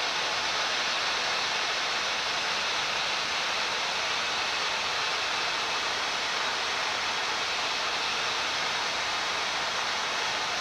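Steady rushing hiss of air and cabin systems in a Boeing 787-9 flight deck during descent.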